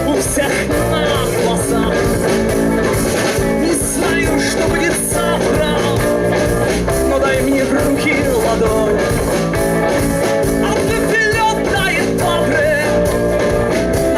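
Instrumental passage of a rock song: guitar over bass and drums, with no lyrics sung.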